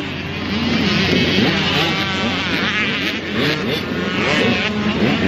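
Several small motorcycle engines running and revving together, their pitches rising and falling over one another.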